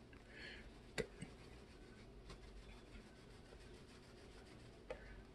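Near silence with faint scratchy shaking of a ground black pepper canister as pepper is sprinkled into a bowl, and a single light click about a second in.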